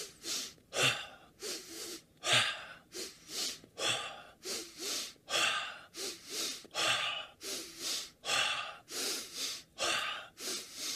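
A man's forceful, rapid breathing in a breathwork drill, the "warrior breath": sharp, even breaths at about two a second, part of a set of ten double breaths.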